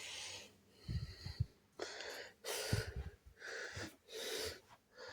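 A person breathing audibly close to the microphone, about five short breaths, with a few soft bumps from the camera being handled.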